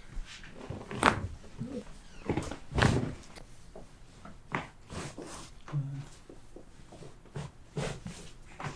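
A series of sharp cracks and pops of chiropractic neck adjustments, the joints releasing. The loudest comes about a second in, a heavier one near three seconds, and smaller clicks follow.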